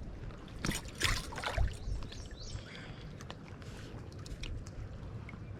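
Water sloshing and splashing, a few swishes close together in the first two seconds, then a quieter stretch of lapping and hiss.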